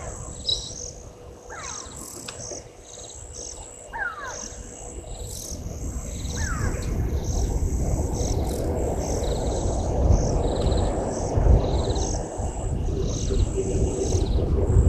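Bush ambience: insects buzzing in quick repeated pulses and a bird giving short falling whistled calls, four times over the first seven seconds. From about six seconds in a louder low rushing noise builds and stays.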